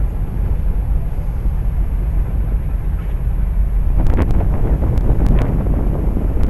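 Wind buffeting the microphone: a steady low rumble. About four seconds in, a scatter of sharp clicks joins it.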